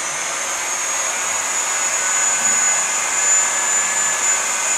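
Variable-speed grinder fitted with an 11,000-grit diamond polishing pad, running wet on marble. Its high whine climbs a little and settles to a steady pitch under a second in, over the hiss of the pad on the stone.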